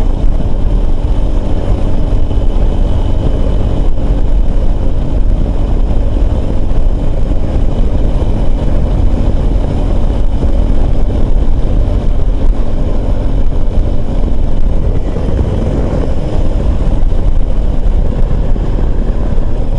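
Motorcycle engine running steadily under hard throttle at speed, heard from on the bike itself.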